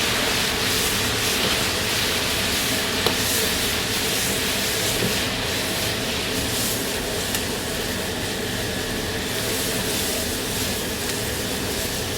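Steady rushing hiss and hum of a commercial Chinese kitchen's gas burners and ventilation running, with a few faint clicks.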